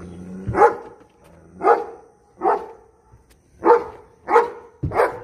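A dog barking: six short, sharp barks at uneven intervals of about half a second to a second.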